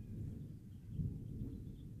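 Low rumble of distant thunder, swelling to its loudest about halfway through and then trailing off.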